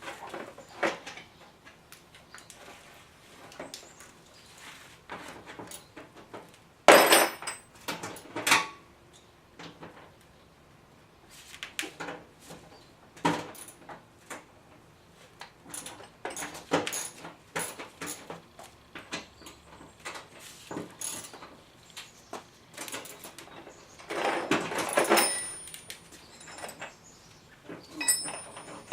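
Scattered knocks, clicks and rattles of things being handled, with louder scraping bursts about seven seconds in and again near twenty-five seconds.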